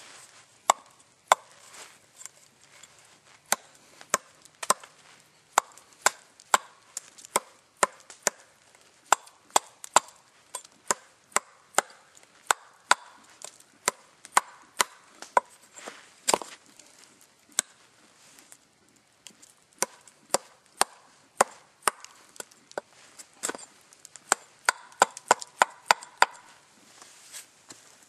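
Axe chopping at a length of wood held in the hand: a long series of sharp, separate knocks, roughly one or two a second, with a quicker run of strikes near the end.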